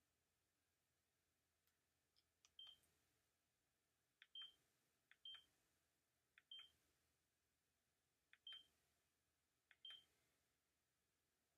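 Casio Exilim EX-Z77 pocket camera beeping as its buttons are pressed while stepping through its menus. Each press gives a faint click and then a short, high beep, six times at uneven intervals.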